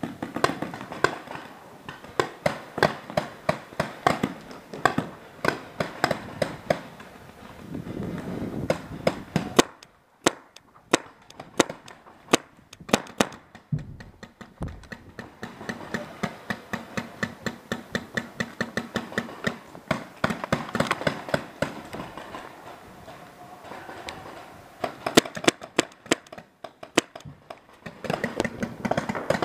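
Paintball markers firing, sharp pops coming in quick strings of several shots a second, with a quieter spell partway through.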